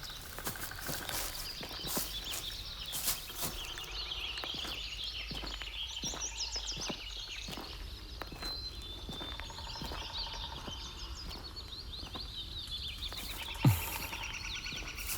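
Outdoor bush ambience: birds chirping and trilling over a soft background, with scattered small clicks and crackles. A fast pulsing call comes in near the end, and there is one short low thud just before it.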